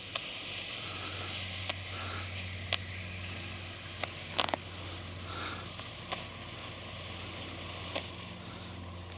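Red smoke canister firework burning with a steady hiss. About seven sharp clicks are scattered through it, the loudest a close pair about four and a half seconds in.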